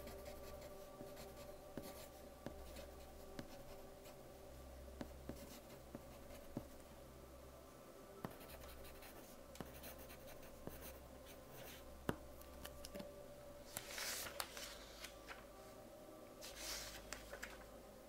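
Soft lead pencil writing on paper: a quiet run of short scratchy strokes and light ticks, with a few longer, louder scratching strokes a little before the end.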